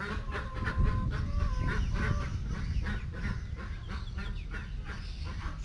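Chickens clucking and calling while they forage, with one drawn-out even call over the first second and a half and many short rising chirps through the rest.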